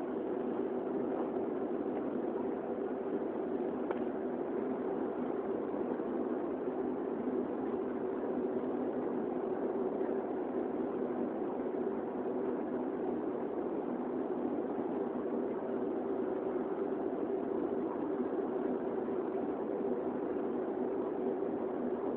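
Airbus A330 engine and cabin noise heard from inside the cabin as the airliner taxis: a steady hum with no change in thrust.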